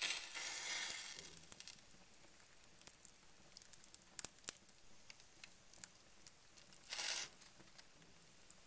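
Paper and cardboard burning in a fireplace grate, crackling with scattered sharp pops. Two short rushing bursts stand out, one at the start lasting about a second and another about seven seconds in.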